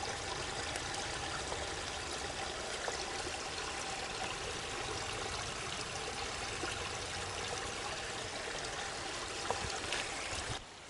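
Stream water running and trickling steadily, dropping away just before the end.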